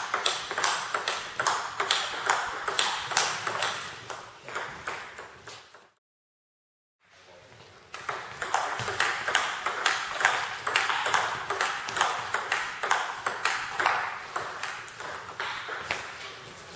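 Table tennis ball in a fast rally: quick, regular clicks of the ball striking the bats and bouncing on the table. The clicks break off into silence for about a second near the middle, then the rally resumes.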